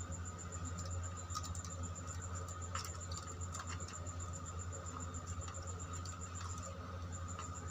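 Scattered light clicks and rattling as copper wires are bent and pushed into the terminals of a plastic switch plate, over a steady low hum.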